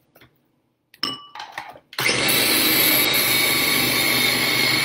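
A few plastic clicks as the lid is fitted onto a small electric food chopper. About two seconds in, the chopper's motor starts suddenly and runs loud and steady at full speed, with a high whine on top, blending frozen banana chunks into soft banana ice cream.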